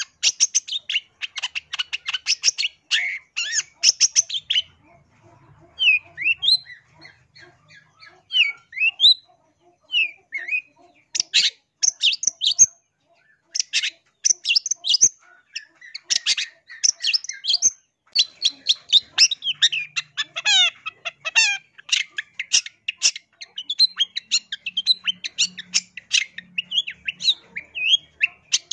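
Long-tailed shrike singing: a fast run of harsh, scratchy chattering notes, then a lull of a few separate rising whistled notes between about 6 and 10 seconds in, then a long, busy stretch of rapid chatter and warbling.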